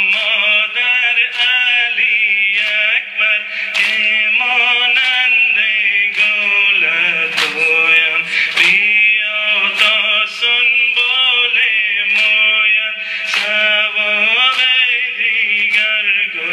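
A man chanting a Persian noha, a Shia mourning lament for Imam Hussein sung for Muharram, in a steady, repeating melody with a short hiss at the top about once a second.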